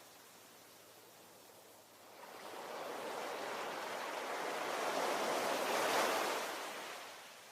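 Ocean waves on a shore: a quiet lull for about two seconds, then a wave's wash builds, peaks about six seconds in and ebbs away.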